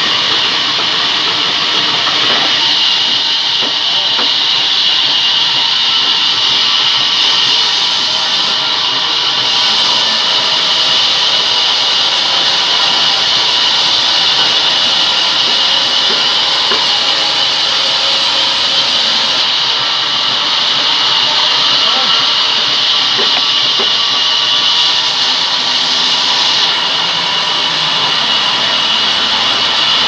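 Large vertical band saw cutting lengthwise through a rain tree log: a steady high hiss from the blade running through the wood.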